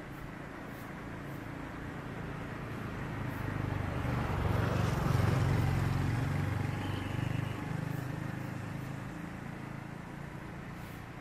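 KAI KT-1 Woongbi trainer's turboprop engine and propeller running as the aircraft taxis. It grows louder to a peak about halfway through as the plane turns to face the listener, with a brief high whine, then eases off.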